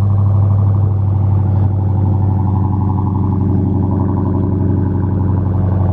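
Dodge Challenger Hellcat's supercharged 6.2-litre Hemi V8 idling with a steady, deep, loud exhaust note.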